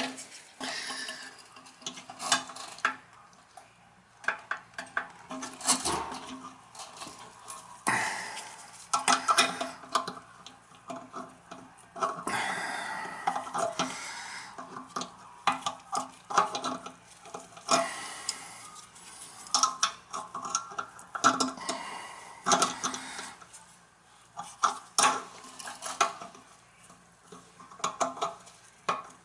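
Metal hand tools clinking and scraping on brass bolts and nuts as a screwdriver and wrench tighten a toilet's tank-to-bowl bolts: irregular clicks and short scrapes throughout.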